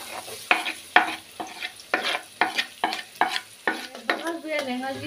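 A steel ladle knocking and scraping chopped onions off a wooden chopping board into a pot of hot oil, a few sharp taps every second, with the onions sizzling.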